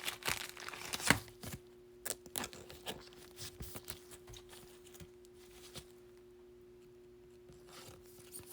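Baseball trading cards being handled: short clicks, taps and rustles of cards sliding against each other. These are busiest in the first three seconds, then sparse, over a faint steady electrical hum.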